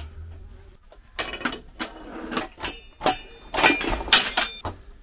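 Metal motorcycle parts and hand tools being handled: a string of sharp clicks and knocks, some with a short metallic ring, loudest about three and a half to four seconds in.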